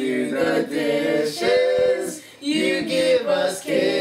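Children singing their own song together a cappella, with held notes and short breaks between lines.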